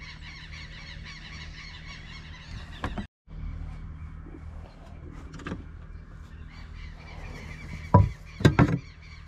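Knocks and clunks of a trailer kitchen cabinet being opened and rummaged through, with a few loud knocks near the end. Under them is a steady low hum, with birds calling in the background.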